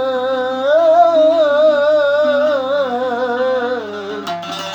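Middle Eastern-style music: one long ornamented melodic line with vibrato held over a steady low accompaniment, sinking lower after about three and a half seconds. Near the end, sharp plucked-string strokes come in.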